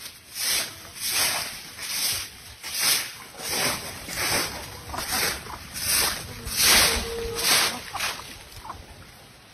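Push broom sweeping dry fallen leaves over bare dirt, its bristles making a rhythmic swish about one and a half strokes a second. The strokes fade out near the end.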